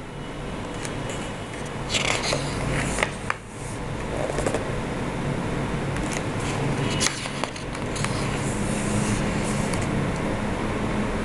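Pages of a softcover colouring book being turned and pressed flat: the paper swishes and rustles in a few short bursts. A steady low hum runs underneath.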